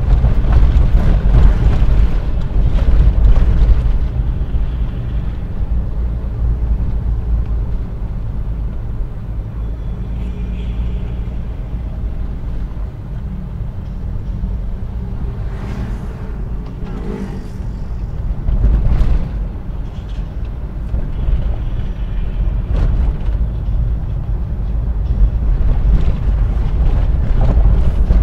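Suzuki Carry Futura's engine and road noise heard inside the cab while driving, a steady low rumble that eases through the middle and grows louder again near the end. A few knocks from bumps in the road come through along the way.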